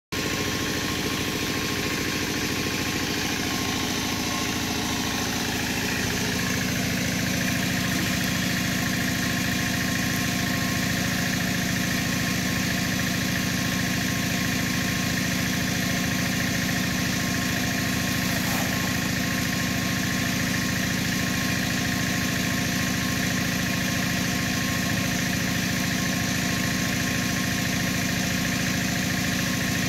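An engine running steadily at one constant speed, a continuous hum with no changes in pitch or level.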